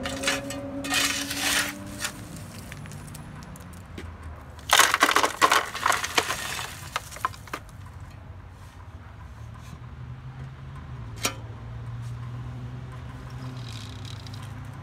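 Shovelfuls of rocks and dirt poured into the dump bed of a radio-controlled dump truck, clattering in two loads, the second, about five seconds in, the louder. A single sharp click comes about eleven seconds in.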